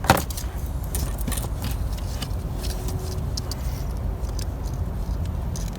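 A plastic electrical connector on a mass airflow (MAF) sensor being pushed down and jiggled to unplug it: a sharp click near the start, then light scattered clicks and rattles over a steady low rumble.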